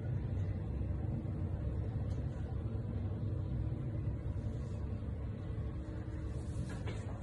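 Steady low rumble of background noise, with a brief scuff of a foam yoga mat being handled near the end.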